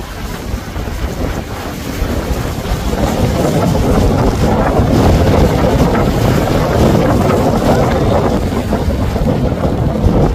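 Wind rumbling on the microphone over the rushing wash of a large motor yacht's wake as it passes close by. The noise swells from about three seconds in and eases near the end.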